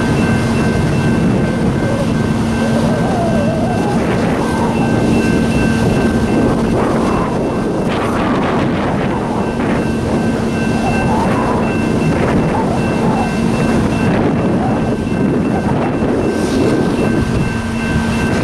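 A fire hose stream spraying water onto a burning load of scrap metal in open-top railcars: a steady rushing noise over the constant hum of an engine running.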